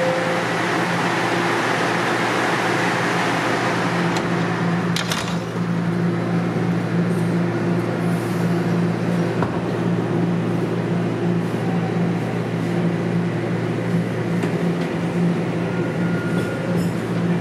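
Toronto Rocket subway train heard from inside the car as it pulls out of a station and picks up speed: a steady motor hum over the rumble of wheels on the track.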